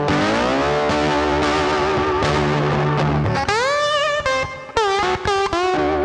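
Background music: a distorted electric guitar plays a lead line, with notes bent upward about halfway through.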